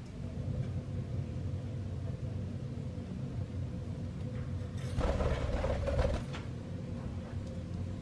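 A budgie's wings fluttering in a burst of a little over a second as it flies off its perch to the cage side, over a steady low hum.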